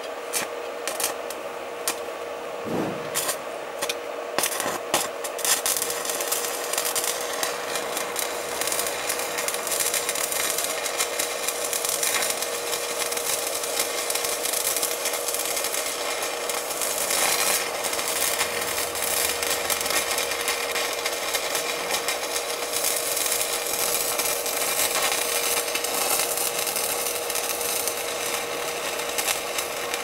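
Stick-welding arc crackling and sputtering as its electrode burns, driving high current through a copper-to-aluminium wire joint in a brass screw terminal under load test. A few separate cracks in the first seconds, then a steady crackle from about five seconds in, over a constant steady tone.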